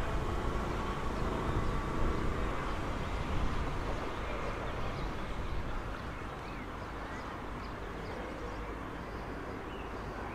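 Red electric regional train pulling away, its rumble and motor hum fading steadily as it recedes. A few bird chirps are heard in the second half.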